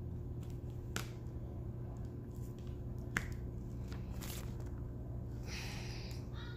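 A diamond-painting drill pen clicking against resin drills and a plastic drill tray: a few sharp clicks, the two loudest about a second and three seconds in, and a soft rustle near the end, over a steady low hum.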